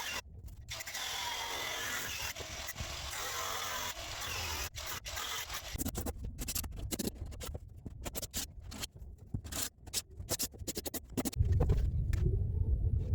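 Scraping and scratching on hard plastic during work on a plastic plate, steady for the first few seconds, then breaking into a run of separate clicks and taps. About eleven seconds in, a loud low hum starts and continues.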